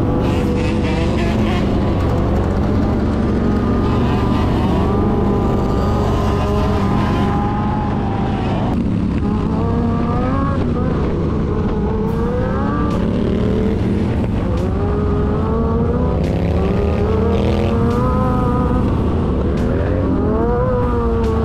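Several Harley-Davidson motorcycle engines running together and being revved, their pitch rising and falling again and again over a steady low rumble.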